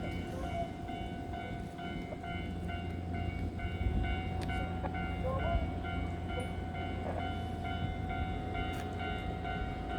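Electric train standing at a station platform, its equipment giving a steady hum over a low rumble.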